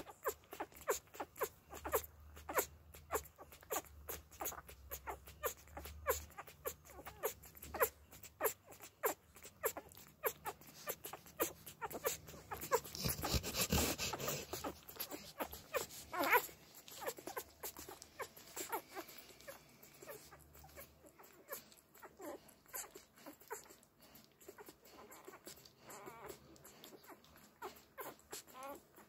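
Four-day-old puppies suckling at their mother's teats: quick wet clicks and smacks, several a second, irregular. About halfway through there is a brief louder rustle.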